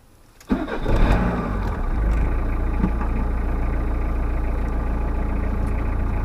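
Talbot Express motorhome engine starting about half a second in, then settling into a steady idle.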